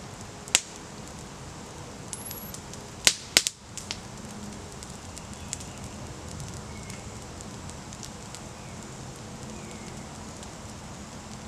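Wood campfire crackling, with a sharp pop about half a second in and two loud pops close together about three seconds in, among smaller ticks.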